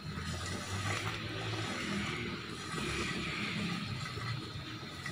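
Namak pare dough pieces deep-frying in hot oil, a steady sizzle with a low hum underneath.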